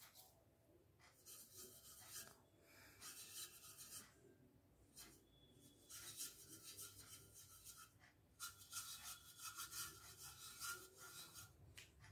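Faint scratchy rubbing of paintbrush bristles over a leaf and newspaper as paint is brushed on, in several spells of strokes.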